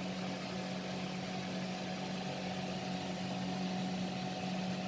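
A steady, even mechanical hum with a constant low tone, like a running motor or appliance.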